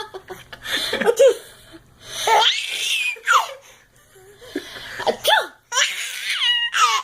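A person sneezing and a baby laughing in response, in several separate bursts.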